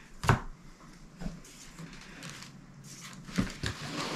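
Pokémon trading cards handled and flipped through in the hand: soft sliding of card against card with a few light taps and knocks, a cluster of them near the end.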